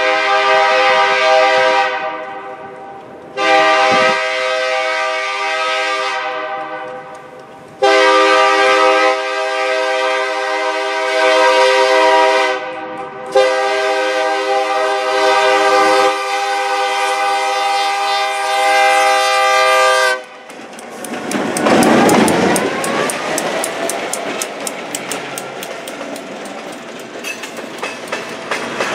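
EMD GP7 locomotive air horn sounding four long blasts, each a chord of several tones, the last held about seven seconds. The train then passes close: the locomotive's diesel engine drops in pitch as it goes by, followed by rapid clicking of the tank cars' wheels over rail joints.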